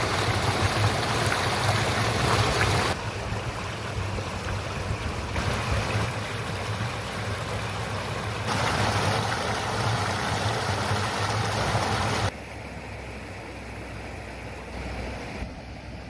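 Shallow stream babbling over rocks in a steady rush, louder and softer from shot to shot with sudden level changes at the cuts.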